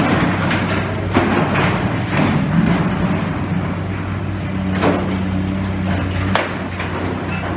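Excavator's diesel engine running steadily during demolition work, with a handful of sharp knocks and clatter of debris at irregular moments, the sharpest about five and six seconds in.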